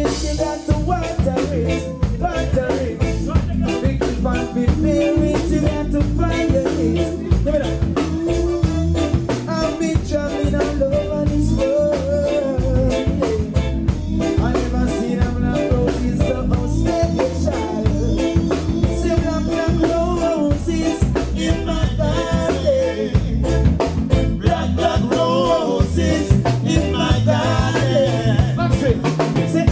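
Live reggae band playing at a steady beat: electric guitar, bass guitar and drums, with a vocalist singing into a handheld microphone.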